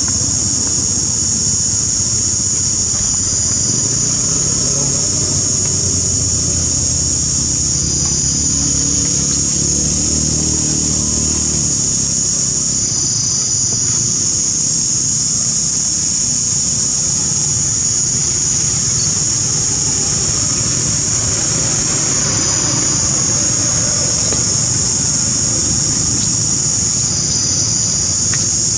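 Loud steady insect chorus, a high shrill buzz that shifts in strength every few seconds. Under it, a low engine hum fades out about twelve seconds in.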